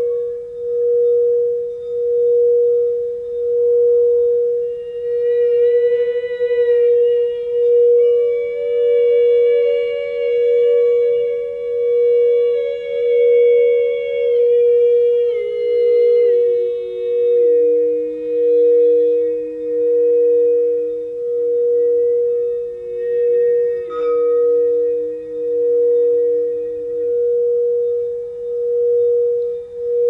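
Frosted crystal singing bowl sung by rimming with a mallet: one steady, pure tone that swells and fades about once a second as the mallet circles. A second held tone sounds above it and steps down in pitch in the middle. A single light tick with a brief ring comes about three-quarters of the way through.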